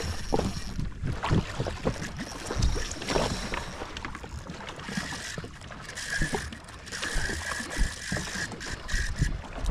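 Water slapping against a jetski's hull in irregular knocks. From about halfway in comes a steady high whine that breaks up near the end: a spinning reel's drag paying out line to a hooked fish that is running.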